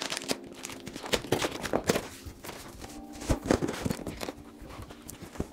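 Butter knife scraping and tearing through the taped seam of a large cardboard box, with the cardboard flaps rustling and knocking as they are pulled open.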